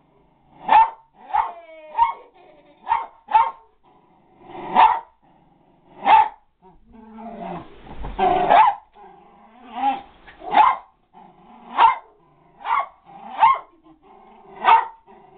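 Small black-and-white dog barking over and over in short barks, about a second apart, as it jumps up on its hind legs.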